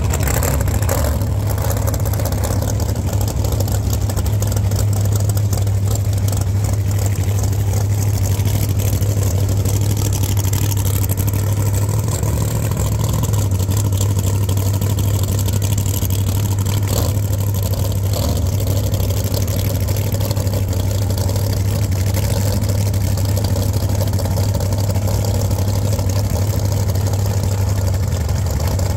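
Drag car's engine idling steadily and loudly at a low pitch, with no revving.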